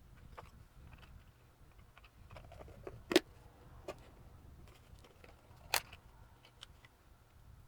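Small parts of a handheld digital multimeter being handled: scattered light ticks and two sharp clicks, the louder about three seconds in and another near six seconds.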